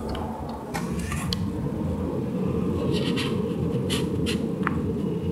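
Car interior noise while driving on a wet road: a steady low rumble of engine and tyres that grows a little louder about a second in, with scattered light ticks.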